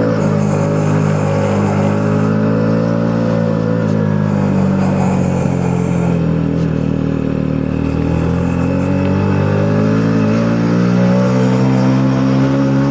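Two-stroke motorcycle engine pulling under load in first gear up a steep hill, its pitch sagging a little in the middle and then rising again.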